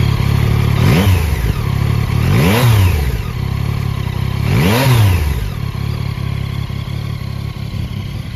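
2021 Yamaha Tracer 9 GT's 890 cc three-cylinder engine idling and blipped three times, each rev rising and falling quickly, about one, two and a half, and five seconds in, before it settles back to a steady idle.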